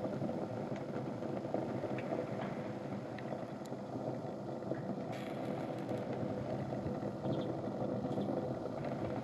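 Sneakers on fire: the flames give a steady rushing flutter, with a few faint crackling ticks.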